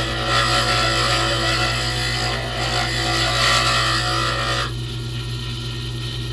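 Wood lathe running with a steady motor hum while a turning tool cuts into a spinning pen blank with a loud scraping rasp. The cutting stops about three-quarters of the way in and the lathe keeps humming.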